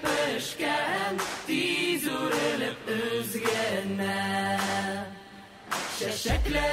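A song sung in Tatar, a chant-like vocal melody over a steady accompaniment, with a brief lull about five seconds in.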